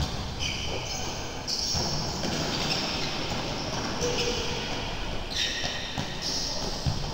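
Steady sports-hall din during a youth indoor match, with one sharp thump near the end.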